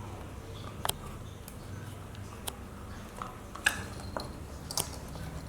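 A puppy chewing and biting on a coconut shell: scattered sharp clicks and knocks on the hard shell, the loudest about two-thirds of the way through.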